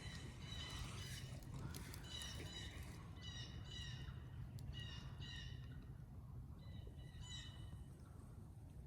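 Outdoor birds calling repeatedly, a short call about every second or so, over a steady low rumble of background noise.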